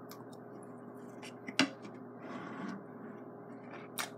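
Chewing a bite of steak close to the microphone: a few soft mouth clicks, the clearest about a second and a half in and another near the end, over a faint steady hum.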